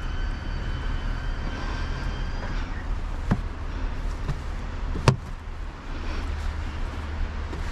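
Steady low rumble of wind on the microphone, with a faint click about three seconds in and a single sharp clack about five seconds in.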